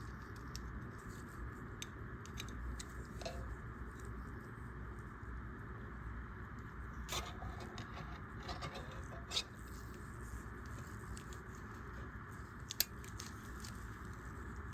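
Faint, scattered small clicks and ticks of watchmaking tools handling a pocket-watch mainspring as it is loaded into a mainspring winder, with a few sharper metallic ticks, over a steady low hum.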